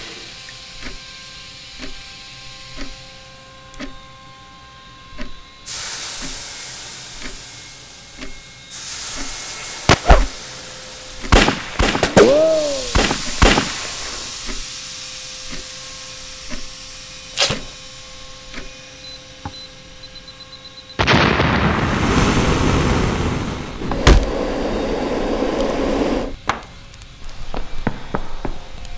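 Layered film sound effects: slow, evenly spaced thuds, a hiss, then a string of sharp pistol-shot cracks, one followed by a ringing tone that bends up and falls. About five seconds of loud fire-like rushing noise with a heavy thud in it comes near the end.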